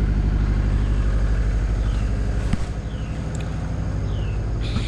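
Truck engine running at a steady speed, its low pulsing drone dropping in level about halfway through as the throttle eases, with a few short high falling squeaks.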